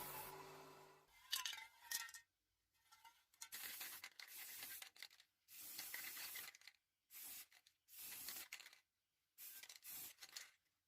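A power tool winding down in the first second. Then a series of short scraping and rubbing strokes, about seven, each up to a second long, with abrupt silent gaps between them.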